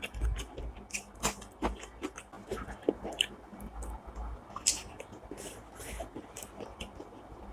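A person chewing and biting food close to the microphone: irregular crunches, clicks and wet mouth smacks.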